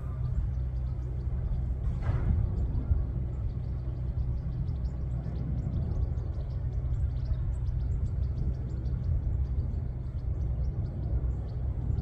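Steady low rumble of wind buffeting the microphone outdoors, with a brief rush about two seconds in and faint high ticks over the second half.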